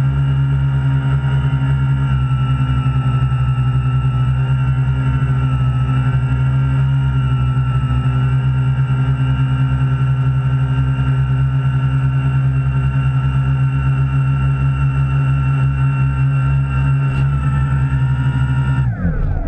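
Quadcopter's electric motors and propellers running steadily, heard close up from the camera mounted on the craft. Just before the end the pitch falls away quickly as the motors spin down after the drone is caught by hand.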